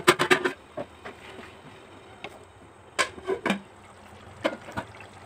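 Hot water poured into a pot of chicken curry, with a quick run of sharp clicks at the start and a cluster of knocks about three seconds in.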